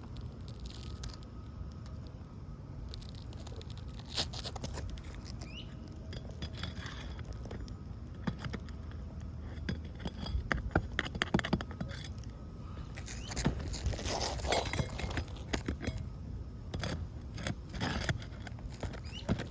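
Asphalt shingles being pried up and their nails worked loose: irregular scraping, crackling and small metallic clicks, busiest around the middle, over a steady low rumble.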